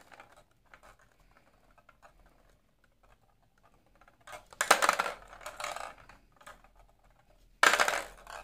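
Hollow plastic balls rolling and rattling across a tilted stainless steel tray: light scattered ticking at first, then a loud spell of clattering about four seconds in and another near the end.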